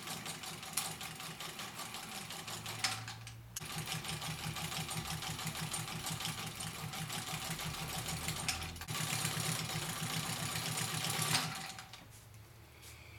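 PMZ class 2M (Podolsk) lockstitch sewing machine running a test seam through several layers of fabric, a steady rhythmic stitching with two brief stops and stopping near the end. This is a trial after servicing and fitting a steel bobbin in place of a swollen aluminium one, and the machine sews perfectly.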